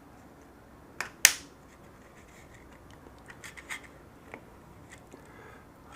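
Small plastic RC buggy parts being handled on a workbench: two sharp clicks about a second in, the second one louder, then a few faint clicks and scrapes.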